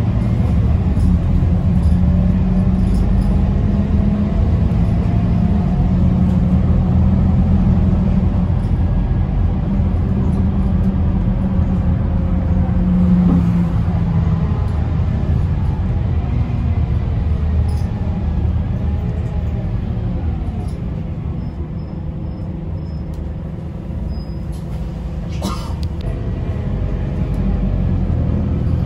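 A Scania K270UB single-decker bus's diesel engine and road noise, heard from inside the passenger cabin while under way. The low engine drone eases off past the middle as the bus slows and builds again near the end, with one short sharp noise shortly before it picks up.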